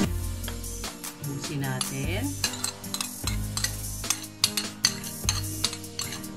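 Metal spoon scraping and tapping on a ceramic plate, pushing wet marinade off it into a glass dish: many small clinks, with a few short squeaky scrapes.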